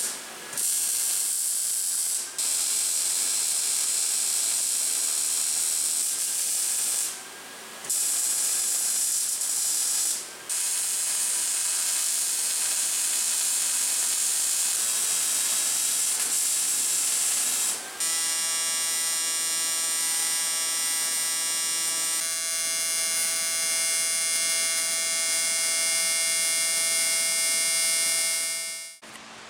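Welding arc on steel brackets, hissing in long runs with a few short breaks. For the last ten seconds or so it turns into a steady, even buzz.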